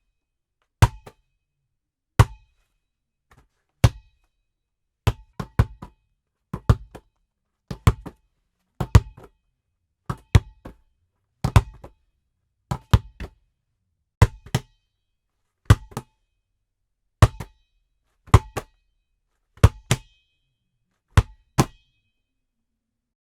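Basketball bouncing on a hard floor, recorded dry with no room echo. It makes a hollow thud about every one and a half seconds, and many of the bounces are followed by one or two smaller, quicker rebounds.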